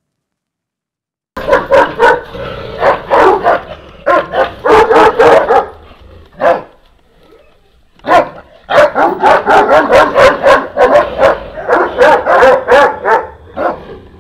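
Sarplaninac guard dogs barking in rapid, repeated barks. The barking starts about a second in, pauses briefly in the middle with a single bark, then resumes.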